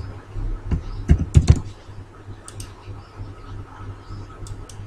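A few computer keyboard keystrokes and clicks, the loudest cluster about a second in and lighter clicks later, over a steady low hum.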